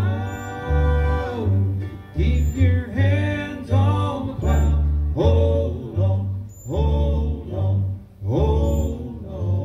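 Bluegrass band playing a passage of a gospel song on acoustic guitar, banjo, mandolin and upright bass. A sliding melody phrase falls and repeats about every second and a half over the steady plucked beat of the upright bass.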